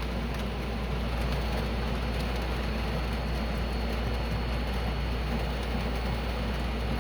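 Steady low hum with an even hiss over it and a faint high whine; nothing starts or stops.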